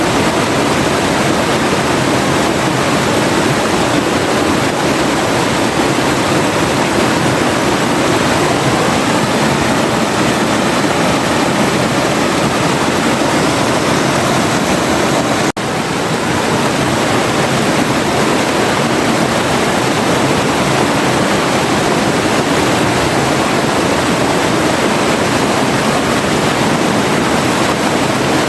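River water rushing and flowing in a steady, loud wash, with a momentary dropout about halfway through.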